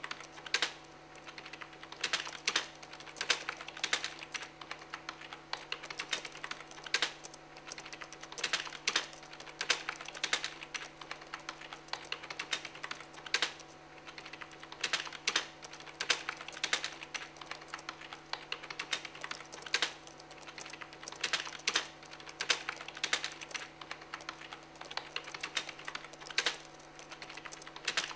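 Typing on a laptop keyboard: irregular bursts of quick key clicks with short pauses between them, over a low steady hum.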